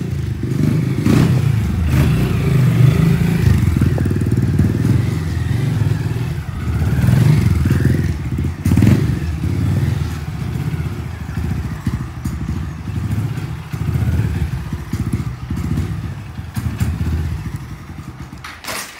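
Motorcycle engine revving unevenly as the bike is ridden on its back wheel, the throttle opening and closing so the revs swell and fall; it dies down near the end.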